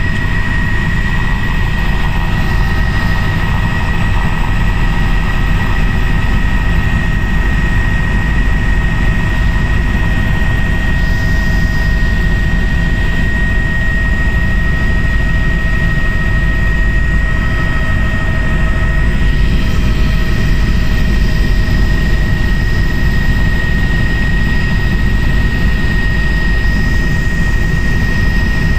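Helicopter's turbine engine and rotor running steadily, heard from a passenger's seat: a loud, even drone with a steady high whine on top.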